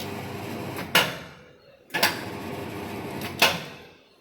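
A construction machine running through two short work cycles. Each cycle starts with a sharp clank, runs steadily for about a second and a half, and ends with another clank that rings off.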